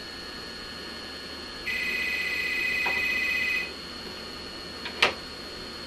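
Corded desk telephone's electronic ringer trilling once for about two seconds. About a second later come two sharp clicks, the louder one as a cat paws the handset off its cradle.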